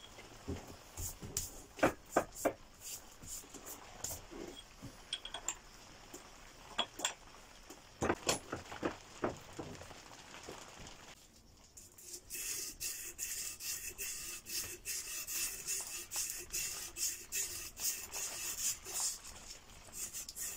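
Scattered clicks and knocks of the steel blade and tools being handled and set in a bench vise, then from about twelve seconds in, hand sanding: a strip of abrasive paper rubbed back and forth along a pattern-welded steel knife blade in quick, even strokes, about three a second.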